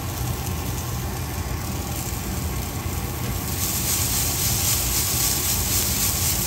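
Green beans and onions sizzling as they fry in a pan, over a steady low rumble. The sizzle grows louder about three and a half seconds in.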